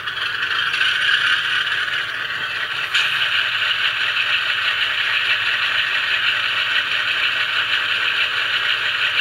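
HO-scale diesel locomotive's DCC sound decoder playing its engine sound through the small onboard speaker just after track power comes on, a steady sound that gets louder about three seconds in.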